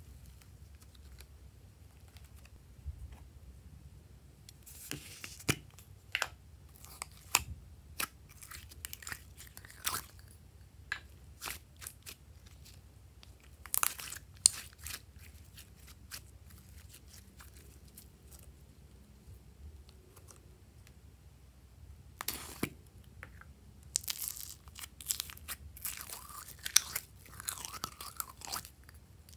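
Soft pink clay and slime being squeezed and pulled apart by hand, giving scattered sharp sticky pops and crackles with quiet gaps between. Near the end, a denser run of crackling as glossy slime is squeezed out of a plastic cup.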